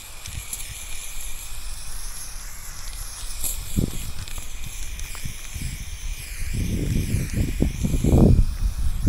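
Aerosol spray paint can hissing steadily as paint is laid on a wall to fill in a graffiti piece. A low rumble joins it for the last few seconds.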